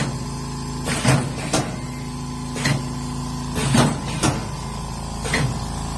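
Sauce-packet packaging machine running in automatic mode, now working after repair of its power fault: a steady hum with sharp mechanical clacks about once a second, some in quick pairs.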